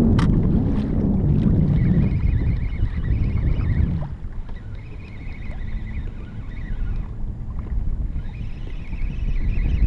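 Wind buffeting the microphone and water sloshing against a kayak hull, a loud low rumble that eases off about four seconds in. There is a single sharp tick near the start, and a faint, wavering high tone runs underneath from about two seconds on.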